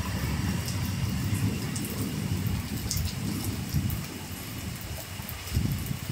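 Steady rain falling, a fine hiss with scattered drop ticks, over a strong, uneven low rumble that eases after about four seconds and swells briefly twice near the end.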